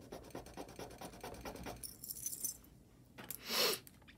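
Small metal pieces of jewelry clinking and rattling lightly as they are handled, a run of fine rapid clicks, followed by a short hiss a little over three seconds in.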